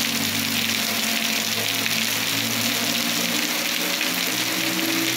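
Heavy thunderstorm rain pouring steadily, with a low steady hum underneath whose pitch creeps up slightly near the end.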